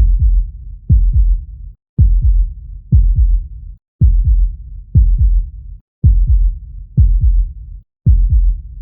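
Heartbeat sound: a steady run of deep lub-dub thumps, about one beat a second, nine beats in all.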